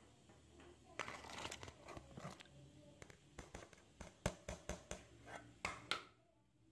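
Kitchen handling sounds: rustling and scraping from about a second in, then a quick run of sharp clicks and taps that stops about six seconds in.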